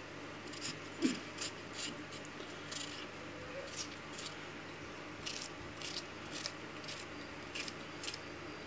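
Irregular light clicks and snips, a dozen or more, from hands preparing food at a glass bowl. The strongest one comes about a second in.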